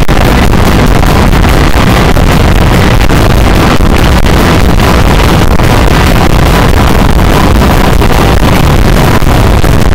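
Live rock band playing at full volume, caught on an overloaded camera microphone, so it comes through as a dense, distorted wash with drum hits pushing through.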